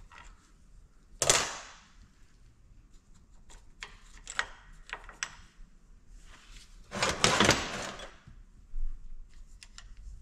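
Metal tools and parts clicking and clanking while a rusty, seized Detroit Diesel DW-LS governor is taken apart by hand: one sharp knock about a second in, scattered light ticks, then a louder run of clanks about seven seconds in.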